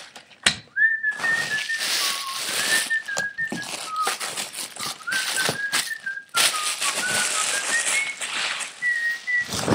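A woman whistling a wandering tune in short notes, over steady rustling and crinkling of tissue paper being handled.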